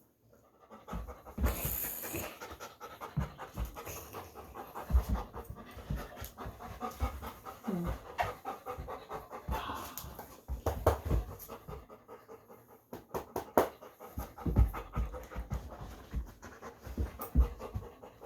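Dog panting in quick, irregular breaths close to the microphone as she settles after rough play, with scattered soft bumps from handling and movement.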